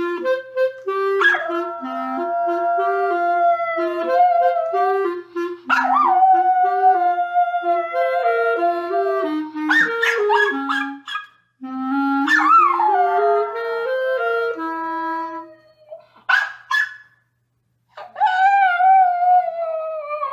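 A dog howling in long, wavering notes along with a simple played melody, breaking off and starting again several times, with a few short yelps towards the end.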